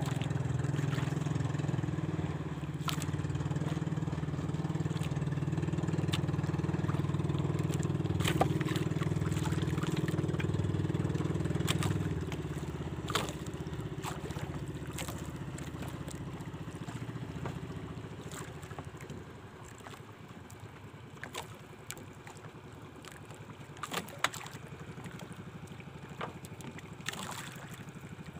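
Boat engine running steadily, then dropping about twelve seconds in and fading away over the next several seconds. Light clicks and knocks come through the whole time.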